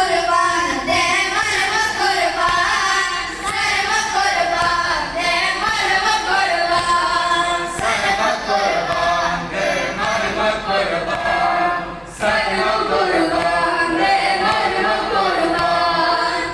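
A group of boys singing a noha, a Shia lament, together in unison through microphones with no instruments. The singing breaks off briefly about twelve seconds in.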